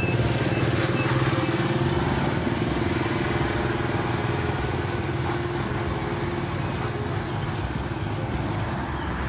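A motor engine running steadily, a continuous low drone with no breaks.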